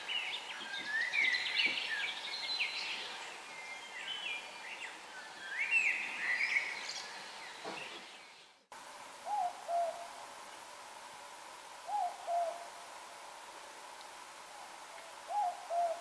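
Mixed forest birdsong with many birds calling over one another, fading out a little past halfway. Then, over a steady hiss, an owl gives a two-note hoot, the second note lower, three times a few seconds apart.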